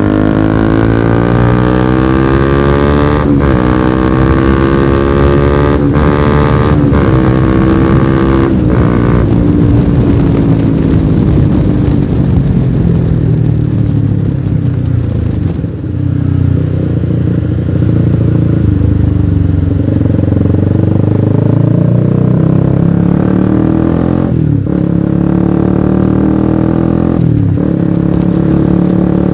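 Honda CBR150R's single-cylinder engine through a lightly modified aftermarket exhaust, accelerating on the road. The revs climb and drop at each upshift, about four times in the first nine seconds. It then runs at lower, steadier revs, with two more brief shifts near the end.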